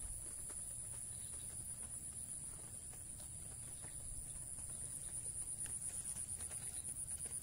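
Insects trilling: a continuous high-pitched, rapidly pulsing buzz, over a low rumble.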